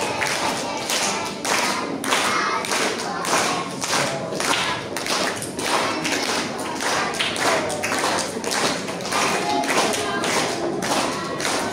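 A group of voices singing a song over a steady beat of sharp claps or taps, about two to three a second.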